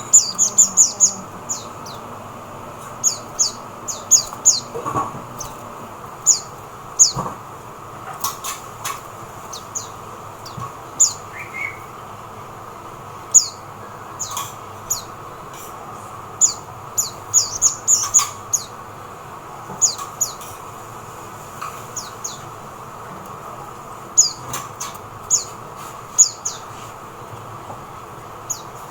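White-eye (mata puteh) calling: short, high, downward-sliding chirps, given singly and in quick clusters at irregular intervals.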